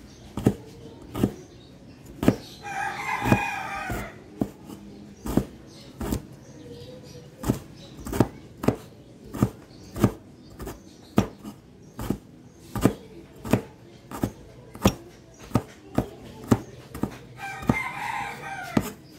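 A rooster crows twice, about two and a half seconds in and again near the end, each crow lasting about a second and a half. Sharp taps or knocks come one or two a second and are louder than the crows.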